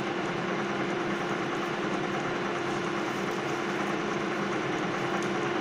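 Centre lathe running steadily, its spindle drive giving an even hum with one clear steady tone over a mechanical whirr.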